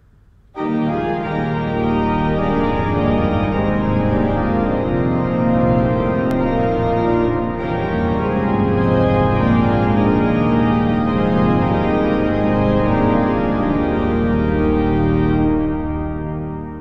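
Pipe organ music: full sustained chords that come in abruptly about half a second in and fade out near the end.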